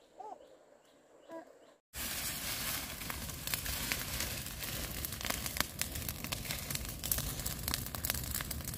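Dense crackling and rustling full of small clicks, starting abruptly about two seconds in; before it, a faint bird chirp in near quiet.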